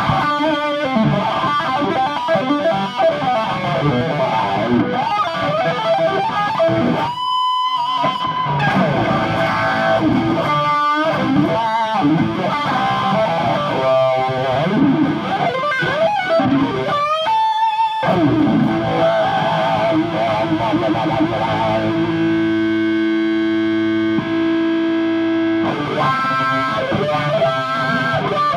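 Distorted electric guitar played through a Dunlop Cry Baby wah pedal, the tone sweeping up and down as the pedal rocks. The lines are broken by a couple of brief pauses, and one chord rings for a few seconds about three-quarters of the way in.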